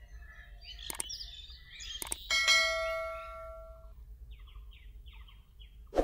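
Subscribe-button sound effect: two clicks, then a bell ding that rings and fades over about a second and a half. Faint bird chirps follow in the background.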